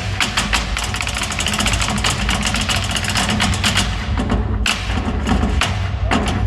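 Live stage drumming: fast, dense percussion strokes over music, with a short break about four seconds in.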